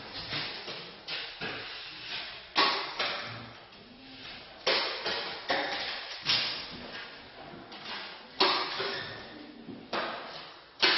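Repeated sharp knocks at irregular intervals, each trailing off in the echo of a bare, freshly drywalled room.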